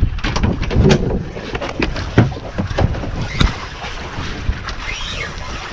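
Wind buffeting the microphone on a small open fishing boat at sea, with irregular knocks and bumps from handling and the hull.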